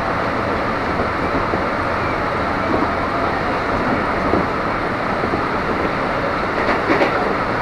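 KRL Commuter Line electric train running along the track, heard from inside the carriage: a steady rumble of wheels on rail and rushing air, with a short knock about seven seconds in.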